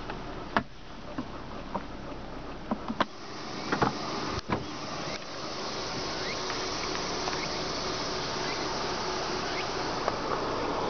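Clicks and knocks from handling a car's interior trim and centre console, the loudest a few sharp knocks about three to four and a half seconds in, followed by a steady hiss.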